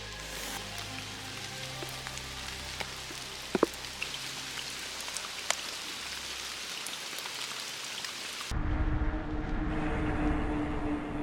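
Steady hiss of falling rain with a few sharp drip ticks, under soft background music that fades out. About eight and a half seconds in, it cuts abruptly to wind rumbling on the microphone with a steady low hum.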